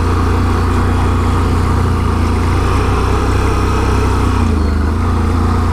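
Can-Am Renegade 1000 ATV's V-twin engine running steadily under way, a low drone with a slight change in engine note about four and a half seconds in.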